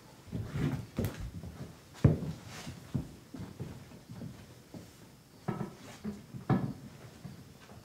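Scattered knocks and thumps on wood as a person moves over a wooden stage box and floor, the loudest about two seconds in. Two short pitched sounds come near the end.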